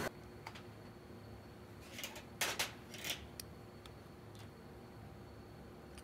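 A few light metallic clicks and clinks as small gear-shifter parts are handled on a metal workbench, most of them bunched together about two to three seconds in, over faint room tone.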